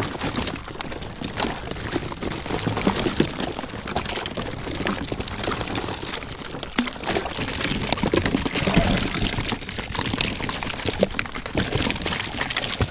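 Water splashing and pouring as a cast net's catch of live pilchards is emptied into a kayak's bait well, with many small irregular knocks and splashes.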